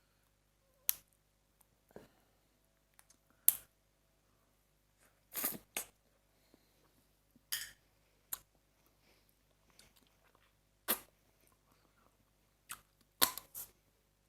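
Close-up crunching and chewing of blanched blue swimming crab. Sharp crunches come every second or two, some in quick pairs, with quiet chewing between them.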